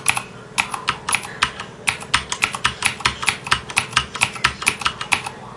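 Mechanical keyboard with Cherry MX switches being typed on in a quick, even run of key clicks, several a second, after a brief pause at the start.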